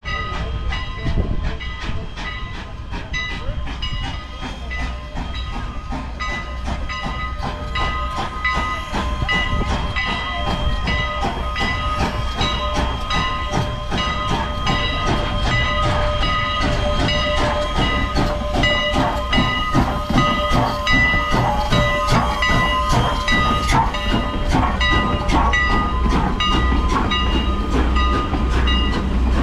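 Strasburg Rail Road's steam locomotive No. 89, a 2-6-0, draws its passenger train slowly up to and past the listener, growing gradually louder. Throughout there is a low rumble and a steady whine, with a rhythm of clicks and clanks that quickens and strengthens as the engine and cars come alongside.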